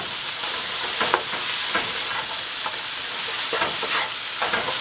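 Sliced okra frying and sizzling in a hot nonstick pan, stirred with a wooden spatula that scrapes and knocks against the pan several times over a steady hiss.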